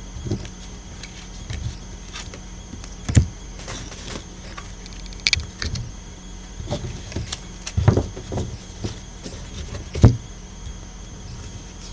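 Tarot cards being shuffled and handled on a cloth-covered table: irregular soft thuds, taps and slides of card stock, the loudest thump about ten seconds in as the deck is knocked together. A steady faint hum runs underneath.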